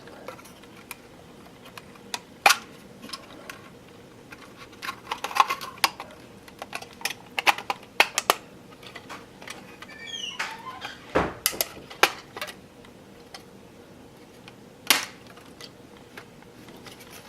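Small plastic parts of a model railroad freight car kit clicking and tapping irregularly as they are handled and fitted together, with the loudest click about two and a half seconds in and another near eleven seconds.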